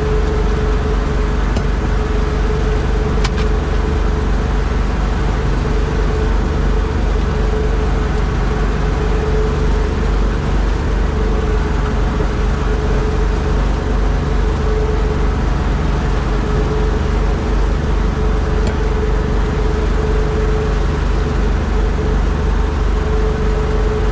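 A fishing boat's engine running steadily at constant speed, a loud even drone with a steady hum over a low rumble.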